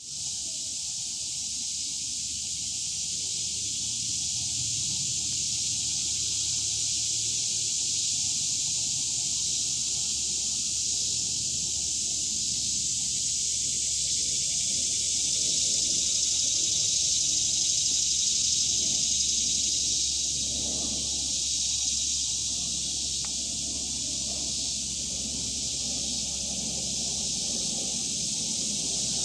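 A steady high-pitched hiss, a little louder around the middle, over faint low background noise.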